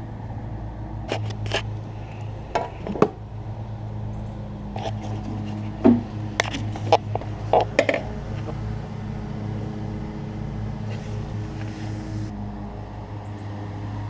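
Irregular metallic clinks and knocks of hand tools against small-engine parts, most of them in the first half, over a steady low hum.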